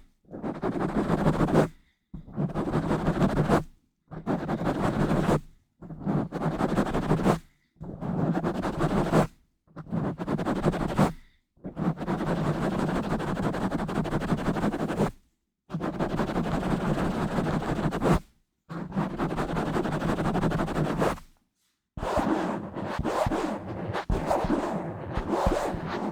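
Hands rubbing directly on a bare microphone in repeated strokes, each one to three seconds long with short silences between, the middle ones longer and steadier. Over the last few seconds the rubbing turns rough and scratchy, broken by many small clicks.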